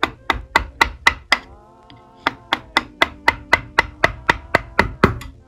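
Mallet tapping a chisel into hard white oak in quick, even strikes, about four a second, cutting relief where the fitted side rail binds. The strikes pause briefly about a second and a half in, then resume.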